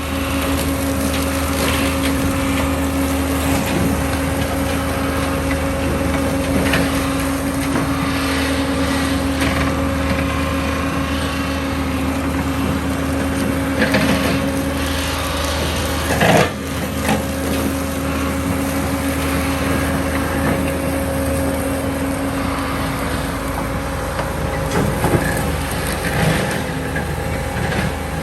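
Bobcat T650 skid steer running steadily under work, its engine and hydraulics giving a constant hum with a steady whine over it and a few knocks, loudest about halfway through. Its reversing alarm starts beeping right at the end.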